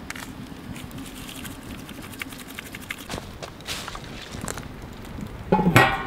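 Seasoning shaker rattling over a steel pot of clams, with quick light clicks. Near the end a metal lid clanks down onto the pot and rings briefly.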